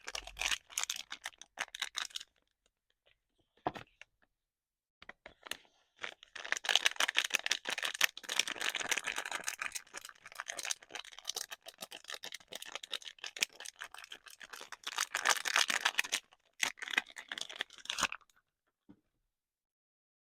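Soap packaging being unwrapped by hand: crinkling, rustling and tearing of wrapping in dense, crackly bursts. There is a brief spell at the start, a long run from about six seconds to about eighteen seconds, and silent pauses between.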